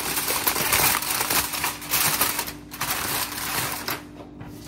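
Crinkling rustle of aluminium foil being handled around a fish, in two stretches: a longer one, then a shorter one after a brief pause.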